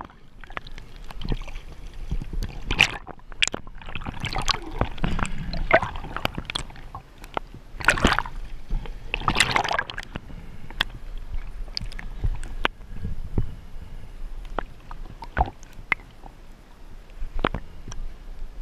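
Water sloshing and gurgling heard through a submerged GoPro housing on a snorkel mask, muffled, with irregular swishes and scattered clicks; the loudest swishes come about eight and nine and a half seconds in.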